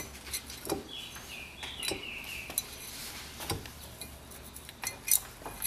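Small metal clicks, taps and clinks as the cylinder head, pushrods and rocker arms of a Kawasaki four-stroke mower engine are fitted together by hand, with the loudest pair of clicks near the end.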